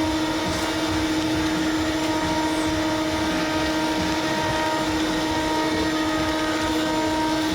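Steady mechanical drone of an electric machine running, with a constant hum, unchanging in pitch and level.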